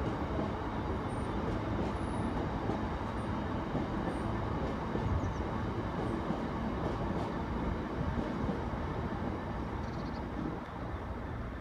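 Freight train's open box wagons rolling past on the rails: a steady rumble of wheels on track, easing off slightly near the end as the last wagon goes by.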